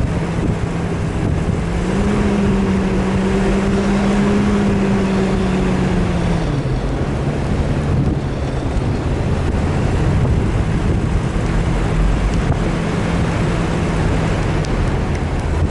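Off-road vehicle engine running under heavy wind noise on the microphone; the engine note rises a little about two seconds in and drops back about six seconds later.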